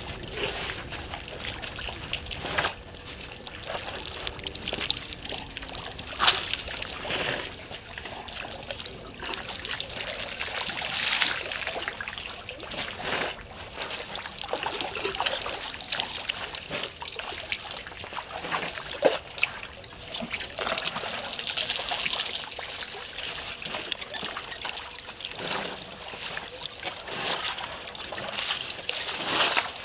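Water trickling and splashing as African elephants drink and wade at the water's edge, with irregular louder splashes.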